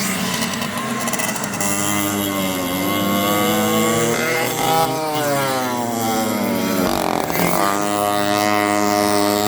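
Go-kart engine running, its pitch rising and falling repeatedly as it speeds up and slows down.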